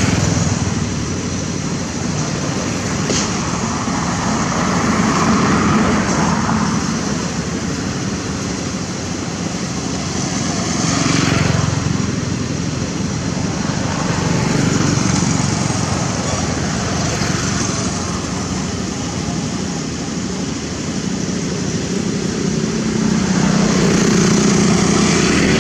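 Road traffic: motorbikes passing one after another, their sound swelling and fading every few seconds.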